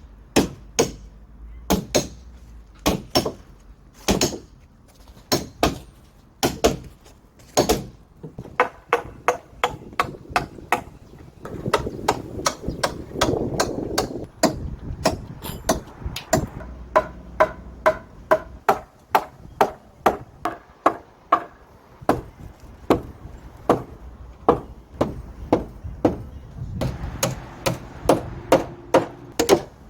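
Repeated hammer blows on timber: sharp knocks, one to three a second, in runs with brief pauses, as wooden members of a traditional house frame are knocked into place.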